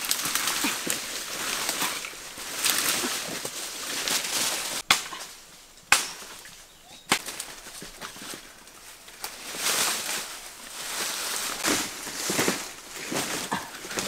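Dry leaf litter and brittle dried strips rustling and crunching as they are handled, dragged and piled on the forest floor, in uneven swells, with three sharp cracks near the middle.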